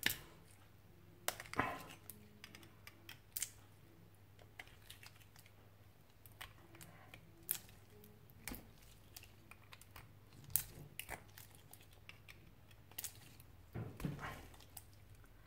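Faint, irregular clicks and short scrapes of steel pliers gripping and working at the metal top end of a Samsung 18650 lithium-ion cell, prying at its crimped seal. A few sharper clicks stand out, the loudest a little past the middle and near the end.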